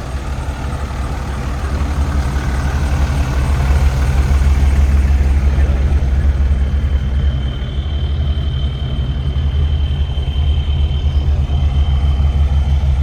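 A vehicle's engine running with a steady low rumble, with a thin high whine for a few seconds in the middle.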